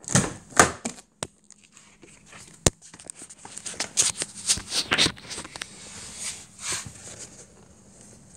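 Handling and rustling noise as a hand moves about a car's open door and interior, with scattered light knocks and one sharp click about two and a half seconds in.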